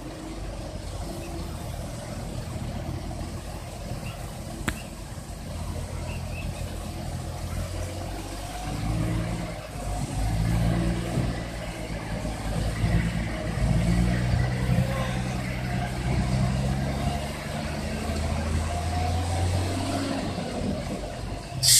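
Diesel engine of a ten-wheel dump truck running, rising to steady higher revs from about eight seconds in as the tipper bed is raised by its hydraulic hoist. A short, loud burst of air hiss right at the end.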